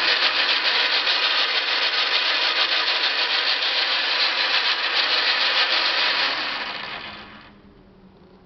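Logan 10 x 24 Model 200 metal lathe running with a loud, rough grinding noise, the fault the seller points out. The grinding holds steady, then fades out about seven seconds in.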